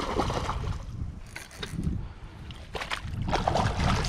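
Irregular splashing and sloshing of shallow river water as a hooked bass is played up to a landing net, with wind rumbling on the microphone.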